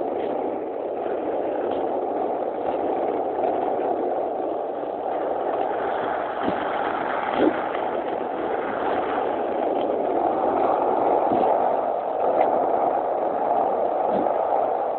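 Longboard wheels rolling fast over asphalt: a steady rumbling road noise, with a brief knock about halfway through.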